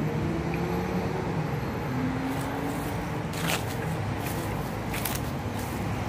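Steady outdoor background noise of breeze on a phone's microphone with a faint low hum, broken by two short rustles, about halfway through and near the end.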